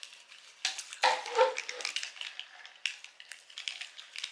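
Fingernails picking at the peel-off seal of a small plastic ranch dip cup: scattered small clicks and crinkles. About a second in comes a louder short whining sound lasting under a second.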